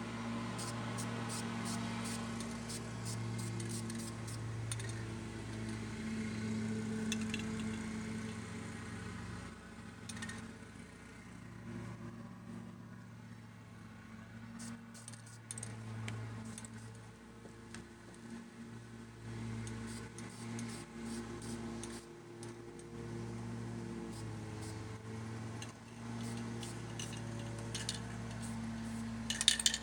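A steady low hum that swells and fades, with scattered light clicks and rattles.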